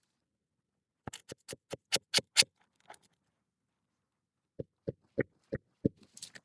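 Hammer strikes in two quick runs: about seven fast blows, then a pause and five slower, evenly spaced blows.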